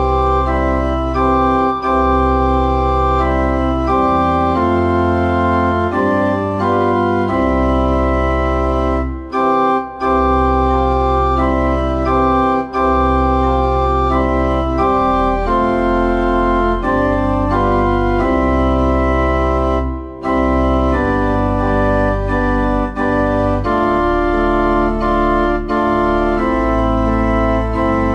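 Organ music: sustained chords over long, deep bass notes, the chords changing every second or two with short breaks between phrases.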